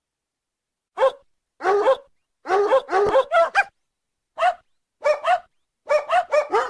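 Dog barking: about a dozen short, high-pitched barks in irregular clusters, starting about a second in.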